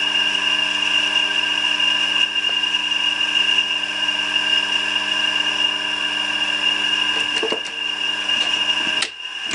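Three-phase electric motor of a VSN R-20 drill press running on mains power through a magnetic starter, a steady hum with a high whine. About nine seconds in the hum cuts off with a click as the stop button opens the circuit and the starter drops out, and the motor's whine fades as it coasts down.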